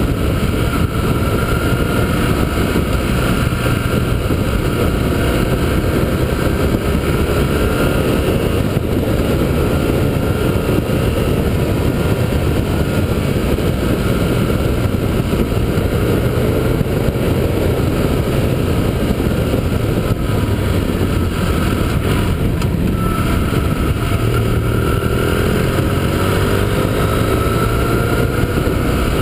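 Motorcycle engine running under way, heard from a camera mounted on the moving bike, with steady wind and road noise; the engine note climbs a few times as the rider accelerates.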